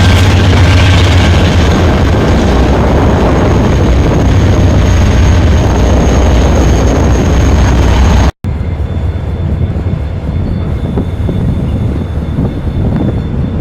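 Diesel locomotive engine running loud with a steady low drone. About eight seconds in, the sound breaks off and a quieter rumble of a passing train follows.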